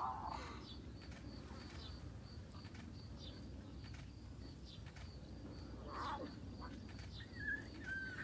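A few short animal calls over a steady low rumble: one at the very start, another around six seconds in, and a couple of brief thin whistled notes near the end.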